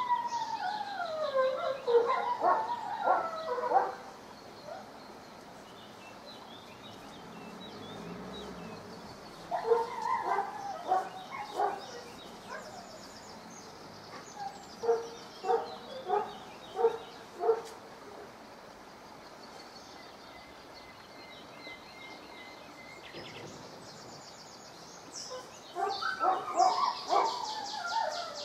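German shepherd dog whining and grumbling in bouts, a sulky complaining sound: a long falling whine at the start, a cluster of whines about ten seconds in, five short yelping whines in quick succession around fifteen seconds in, and another grumbling bout near the end.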